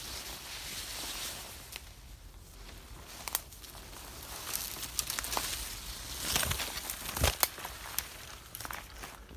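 Leaves and branches rustling and brushing as a person pushes through dense ivy-covered undergrowth, with several sharp twig snaps, loudest about two-thirds of the way through.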